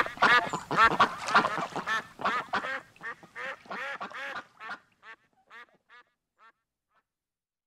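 A duck quacking in a quick run of calls, several a second, fading away until they stop about six seconds in.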